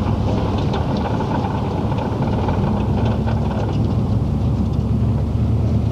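Steady engine hum and road noise heard from inside a moving car's cabin.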